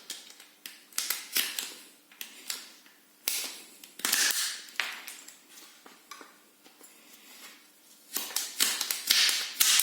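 Ratchet pruning shears (VERTO 15G205) cutting through a mop handle in several strokes: a string of sharp clicks from the ratchet as the handles are squeezed and released, with a few longer crunches as the thin blade bites into the handle.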